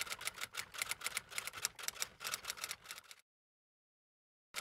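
Typewriter typing sound effect: a rapid run of sharp key clicks, several a second. It stops dead about three seconds in and starts again just before the end.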